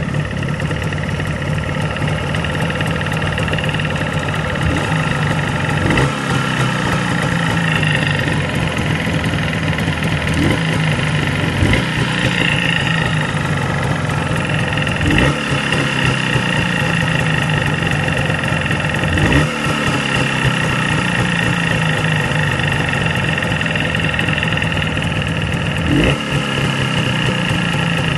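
Jawa 638 two-stroke twin motorcycle engine idling, with a few short throttle blips that fall back to idle. The engine is being checked for a foreign noise in its cylinder and piston group.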